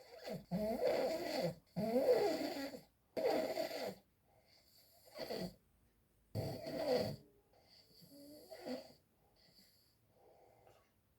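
A person snoring in a run of loud snores, each up to about a second long, then fainter, quieter snores after about seven seconds.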